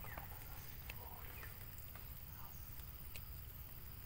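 Quiet outdoor ambience: a steady low rumble with a few faint short chirps and scattered light clicks.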